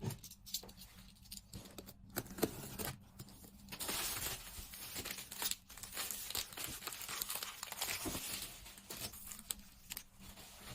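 Packaging being handled and torn open, crinkling and rustling. Scattered clicks at first, then a continuous stretch of tearing and crinkling from about four seconds in until about nine seconds, then a few more clicks.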